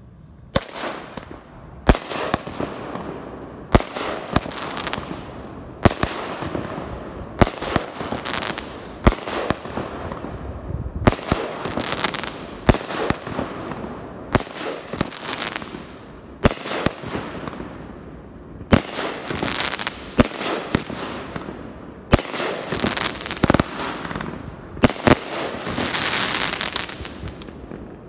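A 500-gram consumer fireworks cake firing its shots in sequence: a sharp bang every one to two seconds, each trailing off over a second or so, starting about half a second in.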